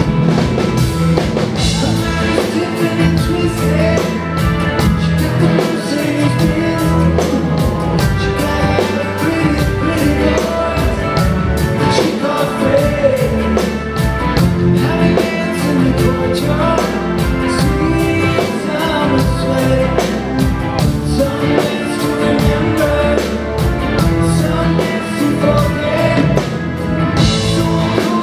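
Live rock band playing loud and steady: a lead vocal over electric guitars, including a twelve- and six-string double-neck, with drum kit and keyboards.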